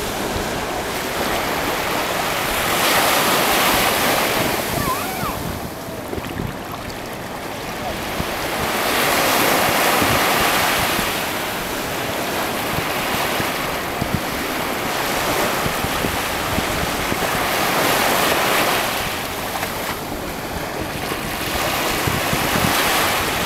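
Pacific Ocean surf breaking on the beach, the wash swelling and easing as a wave comes in about every four to six seconds.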